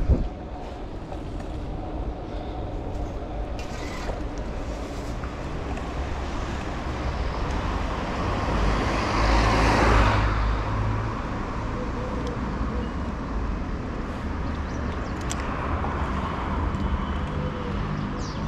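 Steady street traffic and rumble heard from a moving bicycle, with a motor vehicle passing about halfway through, its noise swelling and then fading.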